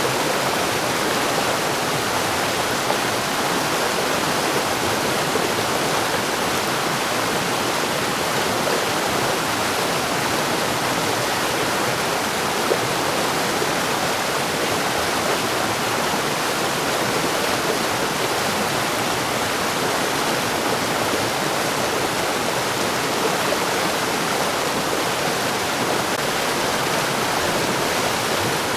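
Mountain stream rushing and splashing over rocks, a steady, unbroken flow of water.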